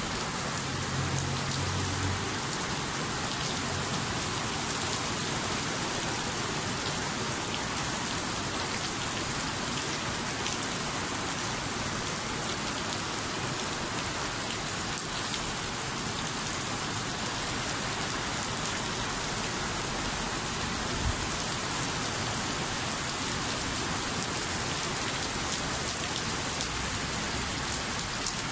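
Steady rainfall, an even hiss that holds unchanged throughout.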